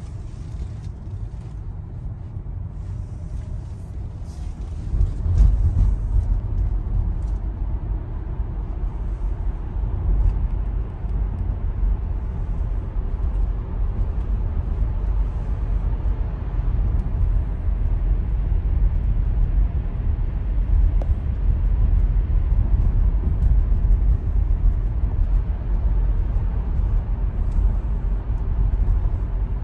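Tyre and road rumble of a Tesla electric car heard from inside its cabin while driving through a tunnel, with no engine sound. A steady low rumble that grows louder about five seconds in and holds there.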